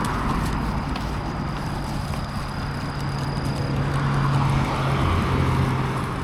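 A motor vehicle's engine, a steady low hum that swells about four to five seconds in and then eases off.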